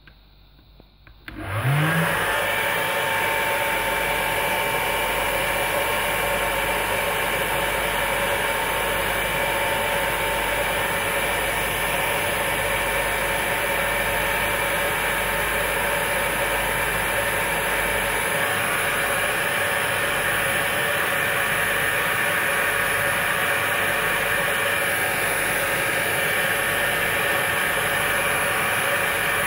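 Handheld hair dryer switched on about one and a half seconds in: the motor spins up with a short rising hum, then runs steadily, a loud even rush of blown air with a faint steady motor whine.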